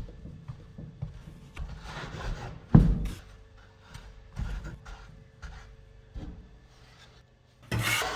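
Hands rubbing, patting and pressing floured bread dough down into a banneton proofing basket, with soft brushing and rustling. There is a dull thump about three seconds in, a smaller one a second and a half later, and a loud brushing sweep near the end.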